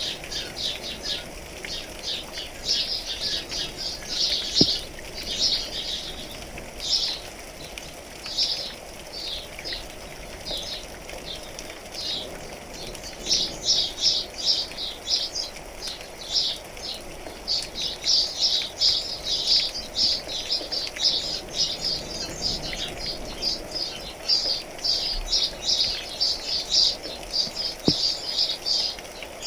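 Many small birds chirping in quick runs of short, high notes, over a steady patter of rain.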